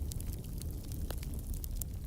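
Campfire burning, a steady low rumble with frequent sharp crackles and pops from the burning wood.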